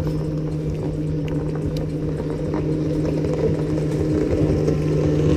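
Bass boat's bow-mounted electric trolling motor running, a steady low hum with water rumble underneath.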